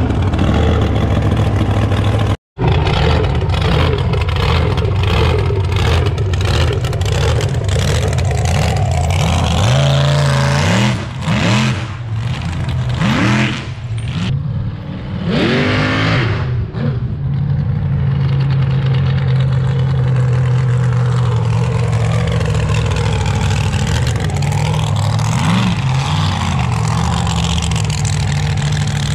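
Supercharged methanol-burning mega truck engine running loudly and revving up several times in rising sweeps.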